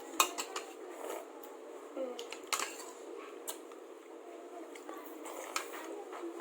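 Spoon clinking and scraping against a soup bowl, in scattered light clicks.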